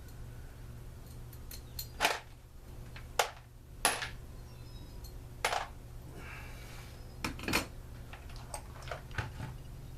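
Small metal engine parts of a two-stroke leaf blower clinking and tapping as they are handled during reassembly: a handful of separate sharp knocks spread through, the loudest about two, three and four seconds in and a close pair past seven seconds, over a steady low hum.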